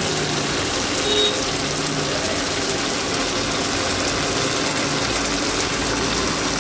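Chicken sukka simmering in its tomato masala in a pan, a steady sizzle.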